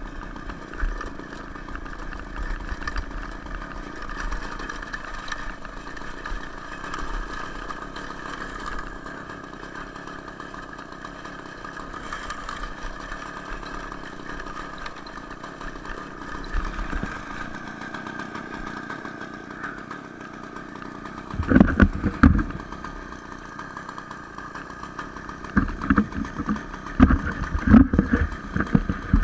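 Small two-stroke Ural chainsaw engine on a homemade moped running steadily. Near the end come several loud, low thumps.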